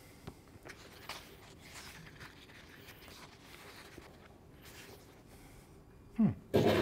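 Pages of a paperback book being turned and handled close to a microphone: faint paper rustles with a few soft ticks. Near the end comes a short, louder burst of a man's voice.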